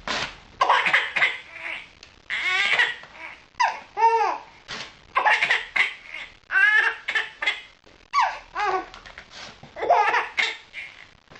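A baby laughing hard in repeated peals, each falling in pitch, between rips of a sheet of paper being torn into strips.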